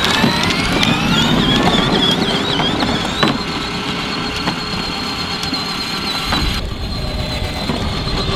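Electric motors of a 24-volt Hollicy ride-on drift go-kart whining as it pulls away from a standing start. The whine rises in pitch for about three seconds, then holds a steady high tone at full speed, with a single knock about three seconds in.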